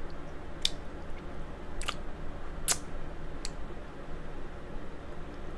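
Close-miked eating of king crab legs: four sharp clicks spread over a few seconds, over the steady hum of an electric fan.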